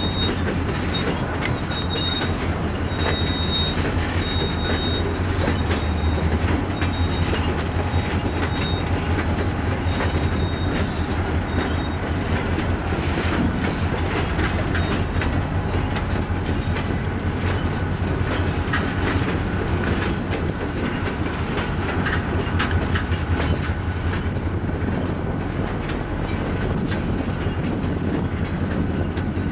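Freight train of open-top hopper cars rolling past: a steady rumble with the clickety-clack of wheels over rail joints. A faint high wheel squeal comes and goes during the first half.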